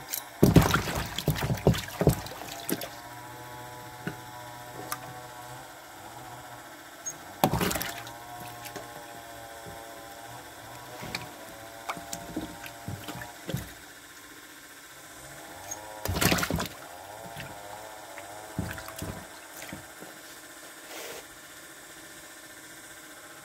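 Hybrid crocodile feeding on raw meat chunks in shallow water inside a plastic bin: sudden splashes and knocks against the bin, loudest in a cluster just after the start and again around seven and sixteen seconds in, with smaller knocks between.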